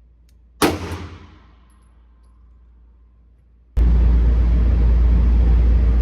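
A single handgun shot at an indoor range, cracking sharply and ringing off the walls for about a second. Near the end a loud, steady low rumble and hiss starts abruptly.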